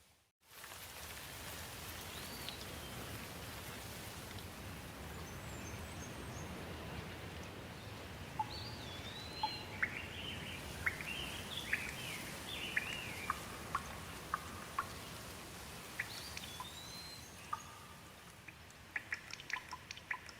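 Steady rain falling, with birds chirping through it in short rising-and-falling calls, busiest around the middle, and sharp drips tapping near the end. The sound drops out briefly just after the start, as at an edit.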